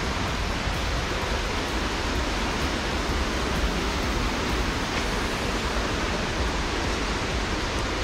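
Steady rushing water from a waterfall and stream: an even, unbroken wash of noise with a low rumble underneath.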